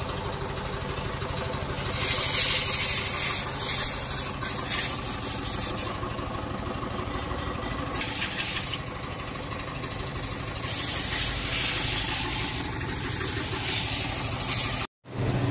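Compressed-air hiss in four bursts, each lasting about a second or two, over a steady engine hum.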